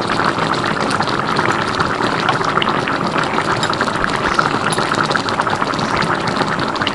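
Coconut-milk gulai of cassava leaves bubbling at a boil in the pot: a steady, dense crackle of bursting bubbles.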